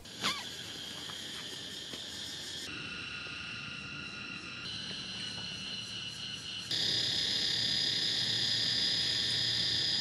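Cicadas droning in a steady, dense, high-pitched buzz. The buzz changes abruptly a few times and gets clearly louder about seven seconds in. A brief sharp sound comes right at the start.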